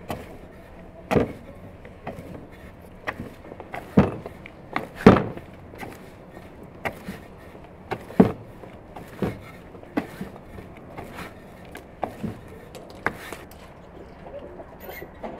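Dough being kneaded by hand in an enamel bowl: irregular soft thumps and slaps, about one a second, the loudest a few seconds in.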